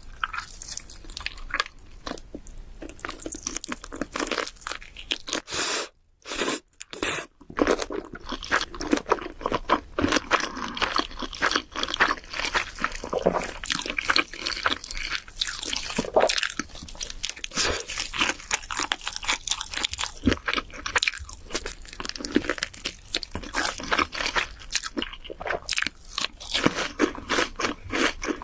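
Close-miked crunchy chewing and biting: a dense run of crisp crunches, broken by a brief silent gap about six seconds in.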